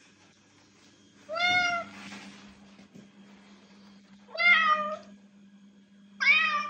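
Domestic cat meowing three times, loud drawn-out meows about two and a half seconds apart, each bending slightly in pitch: a cat at a closed door asking to be let out.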